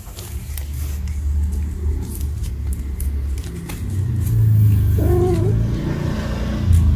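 A low, steady rumble that gets louder about four seconds in, with a cat's short meow about five seconds in.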